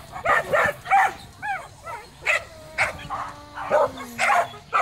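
A dog barking over and over, about two barks a second, some barks bending up and down in pitch.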